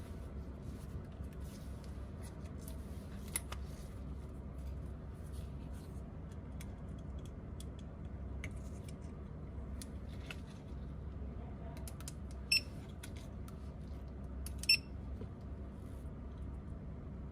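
Small tools and parts being handled during phone repair: scattered light clicks and taps over a steady low hum, with two sharper clicks that ring briefly, about two seconds apart, near the end.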